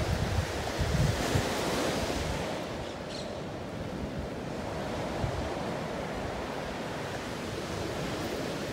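Sea surf washing onto a sandy beach, a steady rushing, with wind buffeting the microphone in low gusts, heaviest in the first second or two and again about halfway through.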